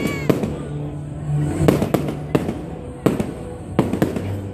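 Consumer fireworks going off: about eight sharp bangs and cracks at irregular spacing, some in quick pairs, from shots being launched and bursting overhead.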